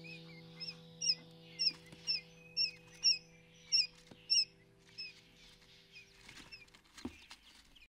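Newly hatched quail chicks peeping: short, high chirps about twice a second, loud for the first few seconds and softer after about four and a half seconds. Soft background music runs under them and stops near the end.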